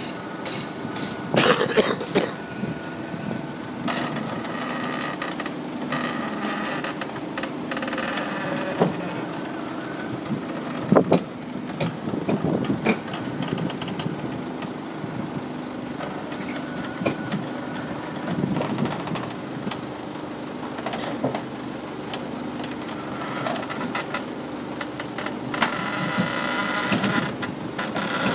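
Komatsu PC450 hydraulic excavator's diesel engine running steadily as the machine crawls onto a low-loader trailer. Its steel tracks give sharp clanks on the trailer deck, about a second in and again about eleven seconds in, and there are squeals near the end.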